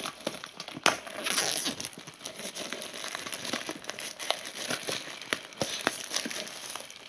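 Clear plastic shrink wrap crinkling and crackling as it is torn and peeled off a DVD box set by hand, with a dense burst of crackling about a second in.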